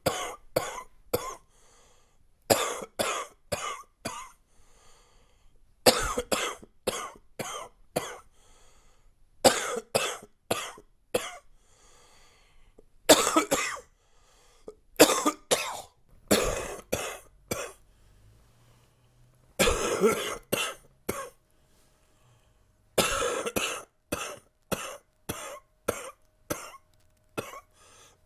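A man coughing from a chest cold: chesty, congested coughs that come in fits of several quick coughs in a row, with short pauses between fits.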